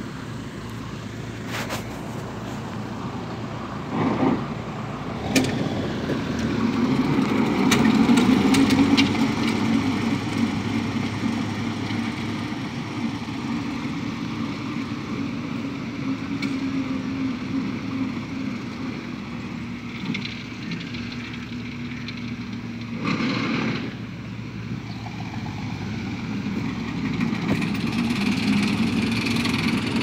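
Road roller's diesel engine running steadily on fresh asphalt, a low drone that swells slightly around 8 seconds in. A few sharp clicks and knocks come in the first ten seconds, and a brief loud rush of noise about 23 seconds in.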